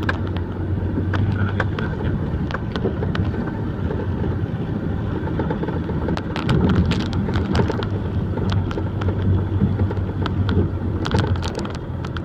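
Logging truck's engine running steadily, with scattered metallic clanks and rattles throughout.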